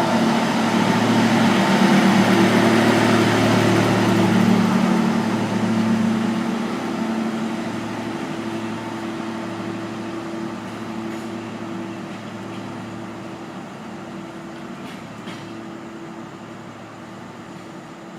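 Passenger train pulling away on the rails: a steady diesel drone with wheel and rail noise, fading gradually as it recedes.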